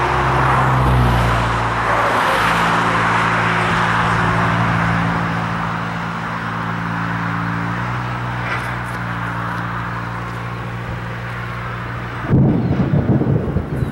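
Road traffic passing, its tyre hiss swelling and fading over a steady low engine hum. About twelve seconds in the hum stops and gusty wind buffets the microphone.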